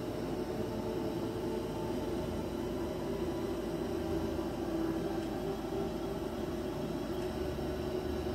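A steady, unchanging drone: a low hum with a few held tones under an even hiss.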